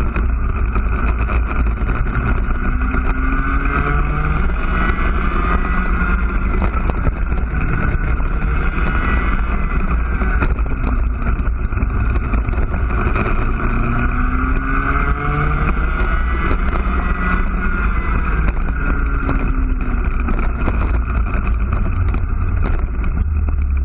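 IAME two-stroke cadet kart engine heard onboard at racing speed, its pitch climbing on each straight and falling back into each corner, several times over.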